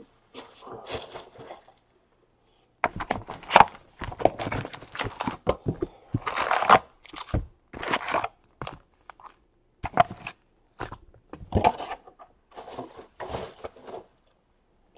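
A 2018 Panini Donruss baseball card box being opened and its wrapped packs taken out and stacked: irregular crinkling and rustling of pack wrappers and cardboard with light knocks, mostly from about three seconds in.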